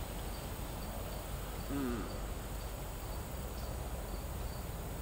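Insects chirping outdoors: a steady, even pulse of faint high-pitched chirps. There is one short hum of a voice about two seconds in.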